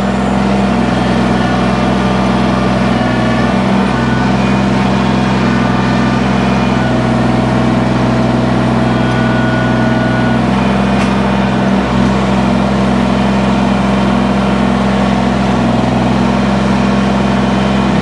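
Tractor's diesel engine running at a steady speed, with no revving.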